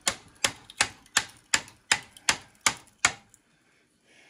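Hammer blows on a flat screwdriver being driven as a punch into a generator's steel field frame: about nine sharp metallic strikes in a steady rhythm, a little over two a second, stopping about three seconds in.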